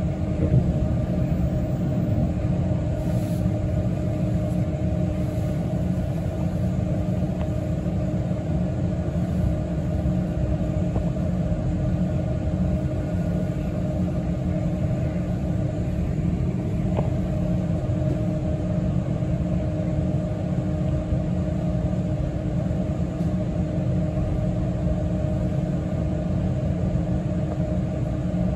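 Steady low rumble of a city transit bus heard from inside the passenger cabin, with a constant hum over it and no change in pitch.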